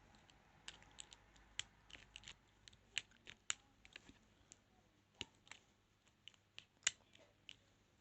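Pick tool working inside a padlock: faint, irregular small metallic clicks and scrapes, with one sharper click a little before seven seconds in.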